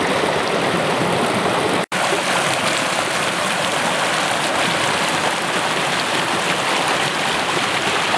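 Shallow mountain stream rushing and splashing over rocks and boulders, a steady rush of water. The sound drops out for an instant about two seconds in.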